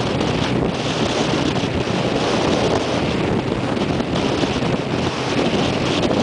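Wind buffeting the microphone of a sport motorcycle riding at road speed, with the bike's engine running steadily underneath.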